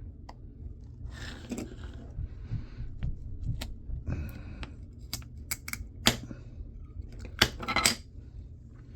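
Small metal parts and hand tools clicking, clinking and rattling as laptop hard drives are taken apart, with a tight cluster of sharp clicks near the end over a steady low hum.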